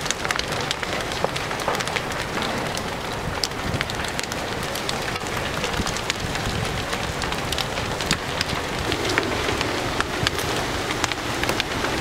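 A large building fire burning, a steady rushing noise with many sharp crackles and pops throughout.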